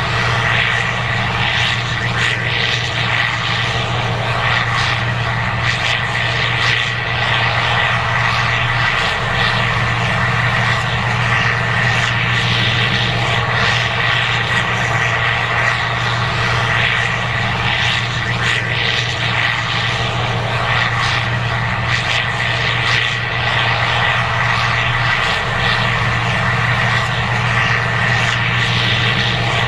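Case IH 2188 Axial-Flow combine running steadily under load while harvesting corn: a constant low engine drone with a steady high whine over it.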